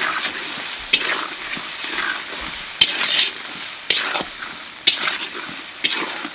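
Diced beetroot, carrot and soaked peas sizzling in hot oil in a metal wok (kadai), stirred with a metal spatula that scrapes and knocks against the pan about once a second.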